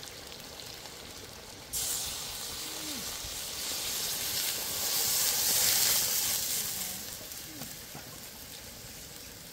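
Fish pieces frying in spices in a hot metal wok, sizzling softly; about two seconds in, water is poured in and a sudden loud hiss and sizzle rise, swell, then fade as the wok fills with broth.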